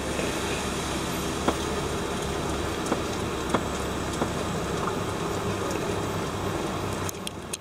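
Steady running noise of a slow-moving vehicle, engine and tyres on the road, with a few faint clicks. It drops away sharply near the end.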